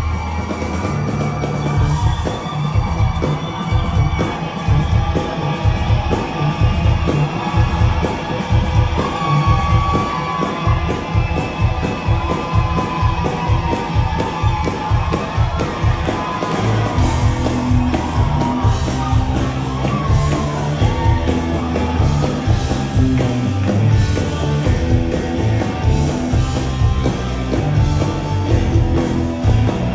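Rock band playing live in a large hall, recorded from the crowd: electric guitar lead over bass and drums, with the audience singing and yelling along.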